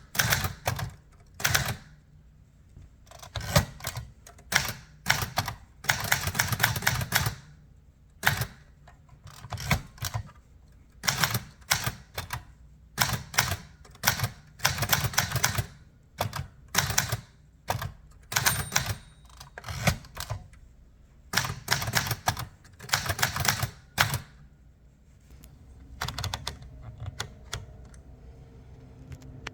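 Remington Ten Forty typewriter being typed on: quick runs of key strikes in bursts with short pauses between them, stopping about 25 seconds in.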